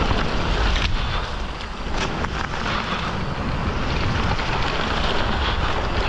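Wind rushing over the camera microphone and tyres rumbling over a dirt trail as a Canyon Spectral:ON electric mountain bike descends at speed, with a few sharp knocks from the bike over bumps about one and two seconds in.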